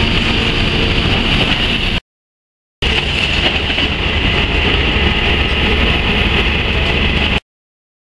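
Steady rumble and hiss of a long-reach demolition excavator working on a collapsing building, its heavy engine running. The sound drops out twice into dead silence, about two seconds in and near the end.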